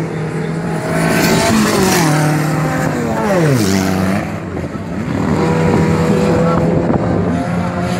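Race car engines on a dirt track, revving high and falling away as the cars run the course. About three and a half seconds in, the engine note drops steeply, then it climbs again and holds.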